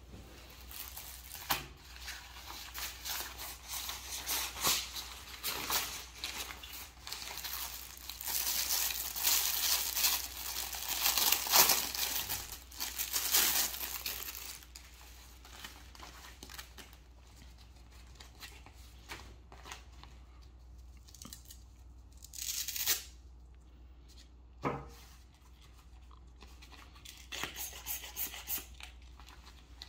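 A plastic packaging bag crinkling and tearing as it is opened and the plastic inflatable tube inside is pulled out and unfolded. The sound is densest and loudest in the middle, then gives way to quieter rustles and a couple of sharp handling knocks.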